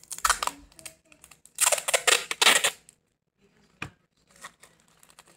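Clear adhesive tape being pulled off its roll, a ripping screech in two pulls, the second longer, followed by a single sharp click.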